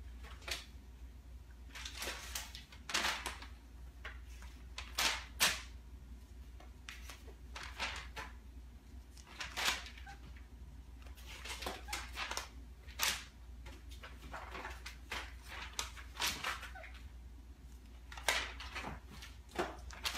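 Pages being turned and paper handled, a series of short rustles one every second or two.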